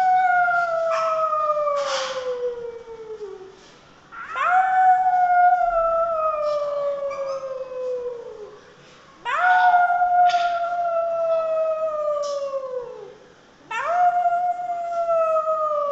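Long, drawn-out animal howls, each rising sharply and then sliding slowly down in pitch for about four seconds, repeated about every five seconds, with a few short sharp sounds in between.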